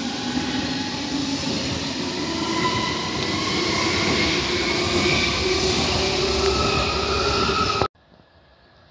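Red DB S-Bahn electric multiple unit pulling out past the platform: wheel and rail noise with an electric traction whine that rises slowly in pitch as the train speeds up. The sound cuts off suddenly near the end.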